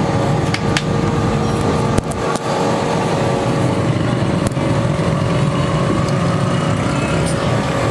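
Carbon-rod arc welding melting lead on a lead-acid battery's cell connector: a steady crackling hiss over a low hum, broken by a few sharp cracks.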